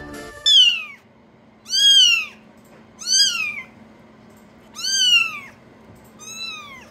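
Very young orange kittens meowing: five high-pitched cries, each rising and then falling in pitch, spaced a second or more apart, the last one fainter.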